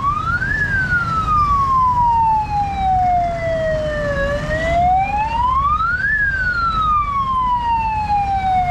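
Electronic vehicle siren wailing: the pitch climbs quickly, then falls slowly over several seconds, twice, over a steady low rumble.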